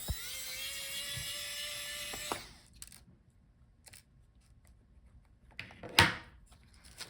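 Small electric screwdriver running with a steady, slightly rising whine for about two and a half seconds, backing out the screw that holds a laptop's SSD cover. A single sharp click follows about six seconds in.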